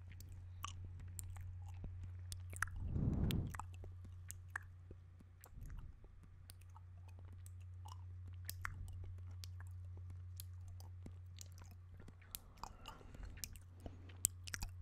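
Wet mouth sounds made close to a microphone: scattered lip smacks, tongue clicks and sucking, with a louder, longer sucking sound about three seconds in.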